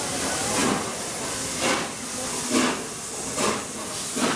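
Peppercorn A1 Pacific steam locomotive 60163 Tornado pulling away, its exhaust chuffing slowly at about one beat a second over a steady hiss of steam, the beats coming a little quicker as it gets under way.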